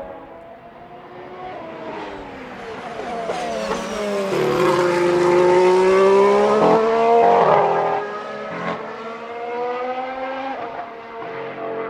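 A 2017 Formula 1 car's turbocharged V6 hybrid engine running at high revs as the car passes. The engine note rises as it approaches, is loudest about halfway through, then drops in pitch and level as it draws away.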